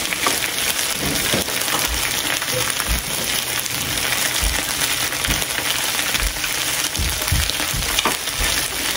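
Slices of beef and pork belly sizzling steadily on a hot grill, with scattered low knocks.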